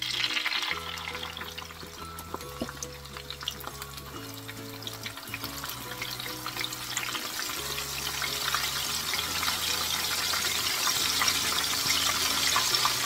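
Soaked masoor dal (red lentils) in a mesh strainer frying in hot oil: a steady sizzling and bubbling that grows louder as the strainer sinks into the oil and the oil bubbles up hard. Soft background music plays under it.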